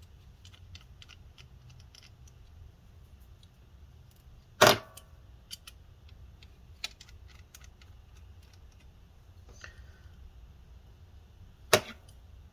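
Small clicks and ticks from a precision screwdriver and tiny screws as a laptop fan's screws are taken out. Two sharp knocks stand out, one about five seconds in and one near the end.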